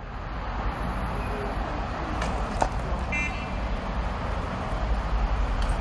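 Steady street traffic noise with a deep rumble, a couple of faint knocks about two seconds in and a short electronic beep about three seconds in.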